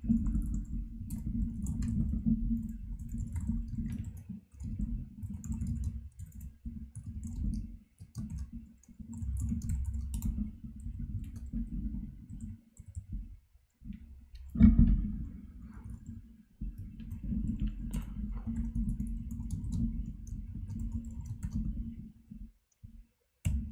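Computer keyboard typing in runs of a few seconds with short pauses between them, the keystrokes coming through as muffled, low taps. One much louder knock, about fifteen seconds in.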